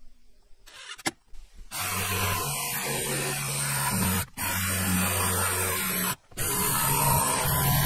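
An electric motor runs with a steady rushing noise and a low hum, starting about two seconds in and cut off sharply twice for a moment.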